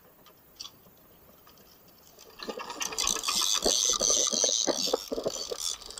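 Water rushing and splashing along the hull of a moving wooden fishing boat, a loud hiss with crackling spatter that comes in about two and a half seconds in, after a quiet start with one faint click.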